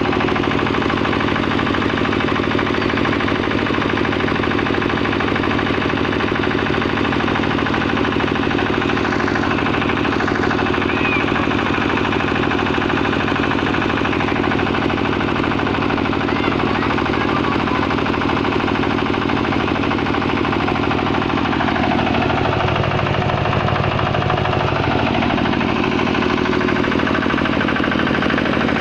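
Water-cooled 12 HP diesel engine of a 7.5 kVA generator set running steadily. About three quarters of the way through, a deeper sound swells for a few seconds, then the steady running carries on.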